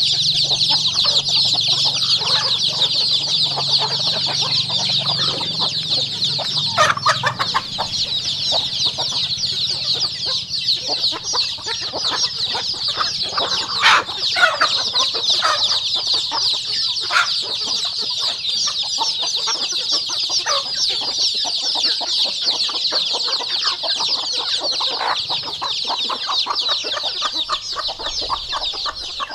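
Chicken chicks peeping continuously, many at once in a dense high chorus, with a few louder, lower calls now and then.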